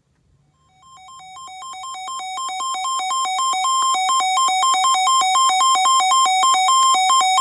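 Electronic alert tone beeping rapidly on two alternating pitches. It starts about a second in and grows steadily louder.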